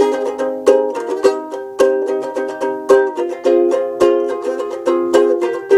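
Ukulele strummed in a steady rhythm of chords, about two strums a second, with a chord change about halfway through and no singing.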